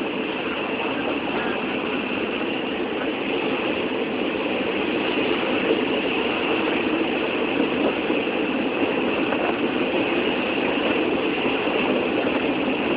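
Steady noise of a train, slowly getting a little louder.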